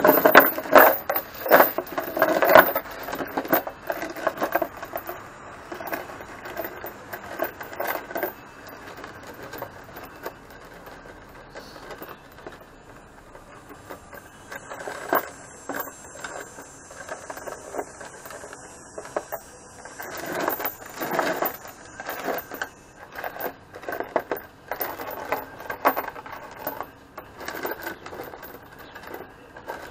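Heavy steel chain being handled and rearranged on a plywood board: links clinking together and scraping over the wood in irregular clusters, loudest in the first few seconds as the chain is set down.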